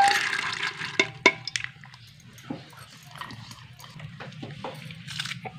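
Soaked chana dal tipped from a bowl into a steel pressure cooker pot of water: a short wet slide and splash, then two sharp clicks a little after a second in and a few faint taps.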